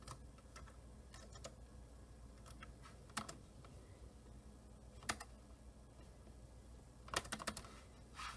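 Scattered keystrokes on a computer keyboard: a few single taps spaced a second or more apart, then a quick run of several keys about seven seconds in.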